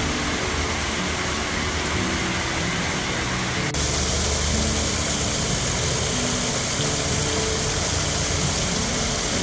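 Water cascading down the steps of a tiered stone fountain, a steady rushing splash. The sound gets brighter and closer about four seconds in. Soft background music plays underneath.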